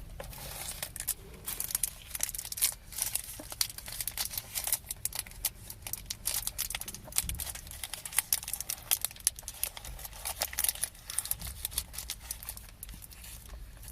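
Crinkly cellophane wrapper of a Quality Street sweet being twisted open and handled by hand, a dense run of irregular crackles.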